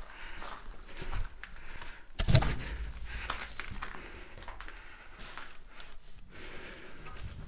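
Footsteps scuffing over a gritty concrete floor, with clothing and gear rustling as a person moves along, and one louder thump a little over two seconds in.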